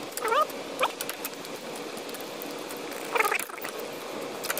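Puppies yipping and whining in short rising calls, a few near the start and a cluster about three seconds in, with scattered sharp clicks from a socket wrench on the hub bolts.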